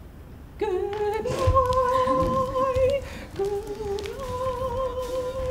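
A voice humming a slow tune in two long phrases, each starting a little lower and stepping up to a steady held note.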